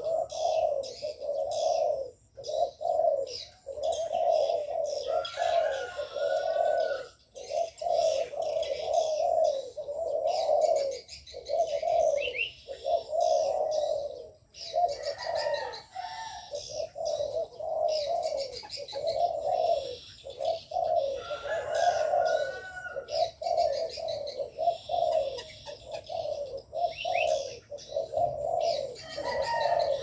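Many doves cooing almost without pause, their low coos repeating and overlapping, with short high chirps of small birds over them.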